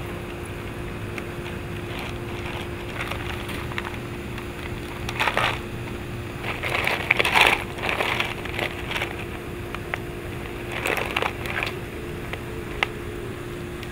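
Golden retriever puppies crunching and chewing ice cubes, in irregular bursts of crunching, the loudest group in the middle.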